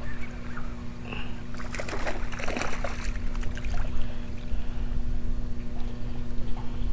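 A small sand trout splashing and slapping at the water surface as it is reeled in on a fishing line, loudest a couple of seconds in. A steady low hum runs underneath.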